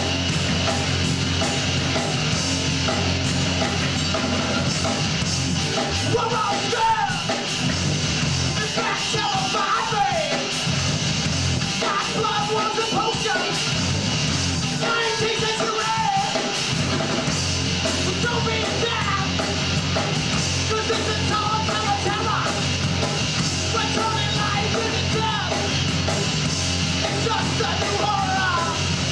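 A rock band playing live on electric guitars and drums, loud and continuous, with a singer's vocals coming in about six seconds in.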